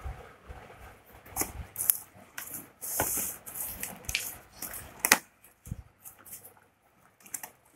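Hands opening a shipping box and its packing: scattered clicks and rustles, a short noisy burst about three seconds in and a sharp click about two seconds later.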